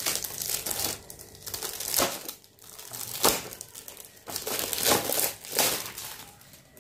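Shiny metallic foil gift wrap crinkling and rustling as it is unwrapped by hand from a small box, in uneven spells with short pauses and a few sharp crackles.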